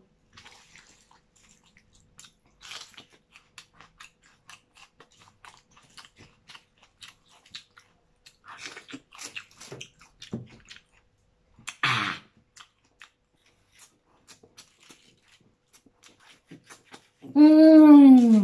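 Cooked crab shells being cracked apart by hand and chewed, heard as a scatter of small crunches and clicks with wet chewing. Near the end comes a loud closed-mouth hum of a voice that rises and then falls.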